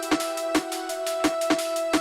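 Electronic background music: sustained synth chords over a beat of sharp drum hits, about four in two seconds.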